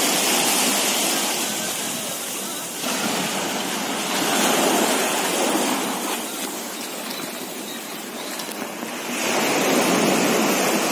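Sea surf washing up on the beach, a steady hiss that swells and fades as waves come in, loudest near the start, about halfway through and near the end.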